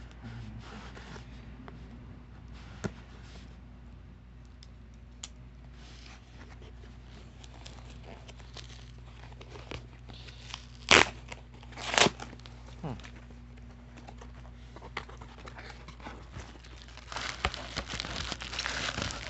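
Parcel packaging being handled and unwrapped: scattered small clicks and rustles, two louder sharp clicks about a second apart past the middle, then dense crinkling of plastic bubble wrap that grows louder near the end.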